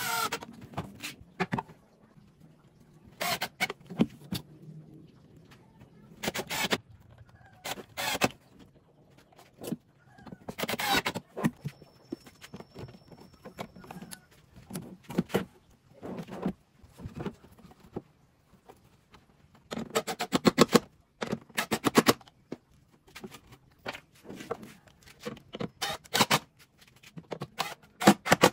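Cordless impact driver run in short bursts, driving screws that fix metal drawer slides to a plywood drawer and its cabinet, the longest and loudest burst about two-thirds of the way through. Between bursts, knocks and scrapes as the drawer is handled and slid into its frame.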